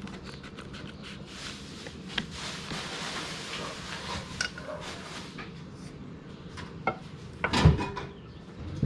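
Objects being handled: rustling and scattered light clicks and knocks, with one loud thump near the end.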